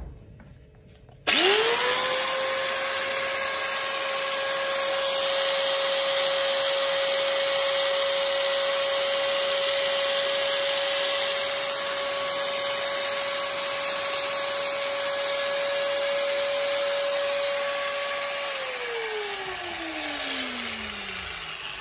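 Corded 220 V angle grinder switched on about a second in, spinning up fast to a steady high whine with a hiss, running with no load. Near the end it is switched off and winds down, the whine falling steadily in pitch.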